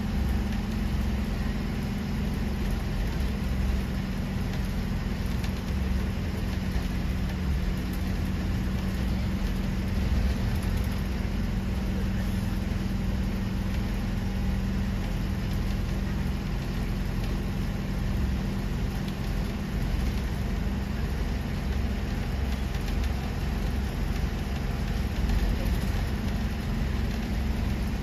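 Bus engine running steadily, an even low drone that holds the same pitch throughout.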